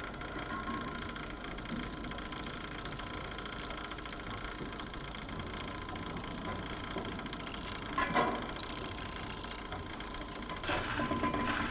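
Sound effect of clockwork gears whirring over a steady mechanical hum. A cluster of sharper clicks and ratcheting comes about two-thirds of the way through, and more clicking near the end.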